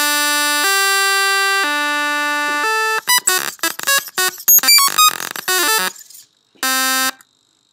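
Harsh synthesized electronic tones from an interactive prototype robot's small speaker, driven by Max/MSP. Buzzy held tones jump in pitch every second or so, then break into rapid random bleeps. A last short buzz comes near the end. This is the robot's loud, aggressive noise for someone standing too close.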